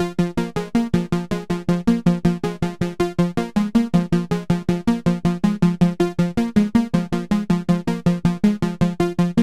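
Synthesizer arpeggio from a Novation Circuit Tracks groovebox: short plucked notes repeating evenly at about six a second, in ambient electronica.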